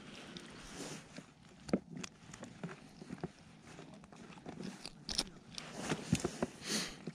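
Close handling noise from an ice angler at his hole: scattered clicks, crunches and rustles from gear, clothing and snow. The loudest are a sharp click about two seconds in and a cluster between about five and seven seconds.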